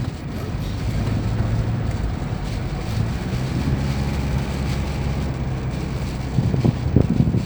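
Car engine running under load, a steady low hum that rises a little about three seconds in, as the car's wheels slip in snow. Low wind noise underneath.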